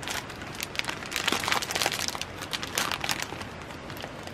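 Plastic packaging crinkling irregularly with many sharp crackles as hands handle a packet of soba noodles, loudest in the middle.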